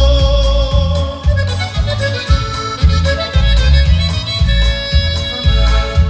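A conjunto band playing live in an instrumental passage: accordion carrying the melody in long held notes over electric bass and drums keeping a steady beat with cymbal strikes.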